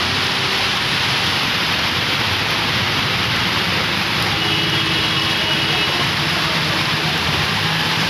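Loud, steady hiss of heavy rain with floodwater rushing along a street. A faint steady tone sounds for a second or two about halfway through.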